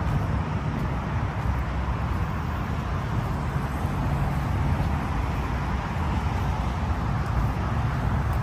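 Steady outdoor background noise with a low rumble, even throughout.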